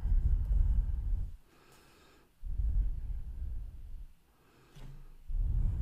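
A person breathing close to the microphone: three low, rumbling breaths about two and a half seconds apart, with near-silent gaps between them.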